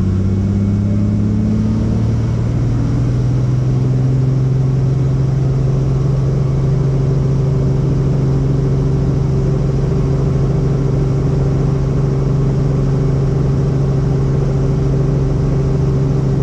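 Helicopter engine and rotor running steadily, with a low, rapid rotor beat underneath; the engine's pitch rises slightly over the first two to three seconds and then holds level.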